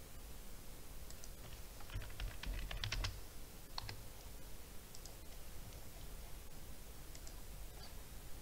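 Typing on a computer keyboard: a quick run of keystrokes about two seconds in, with a few separate clicks before and after.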